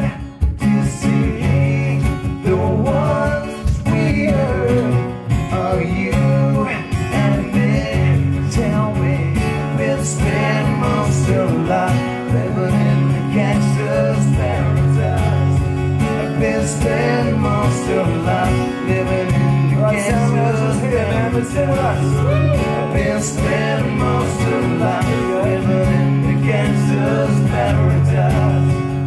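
Live acoustic music: two acoustic guitars, a steel-string pair, played together in a steady accompaniment.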